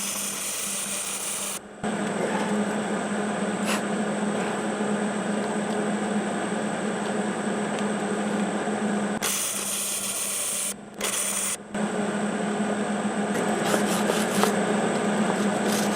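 Electric grinder running steadily against the tractor's steel wheel rim, cleaning the metal along a leaking weld line, stopping briefly a few times.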